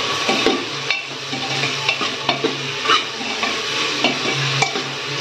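Tomatoes, salt and spices sizzling in hot oil in an open aluminium pressure cooker while a steel ladle stirs them, with irregular clicks and scrapes of the ladle against the pot.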